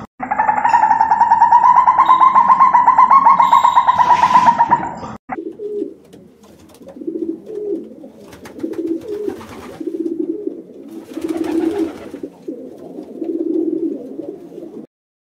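A civet's loud, rapid pulsing churr for about five seconds, then pigeon cooing: a run of low coos about once a second.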